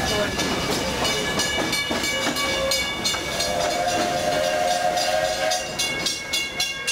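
Narrow-gauge steam train running, with several steady high squealing tones and many quick clicks from the moving cars. About three seconds in, the locomotive's steam whistle sounds one held, chord-like blast lasting a little over two seconds.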